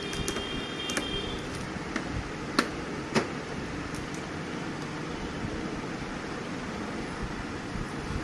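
Hands handling the plastic panels and packing tape of a new HP Neverstop laser printer: a few sharp clicks and taps, the two loudest about two and a half and three seconds in, over a steady background hum.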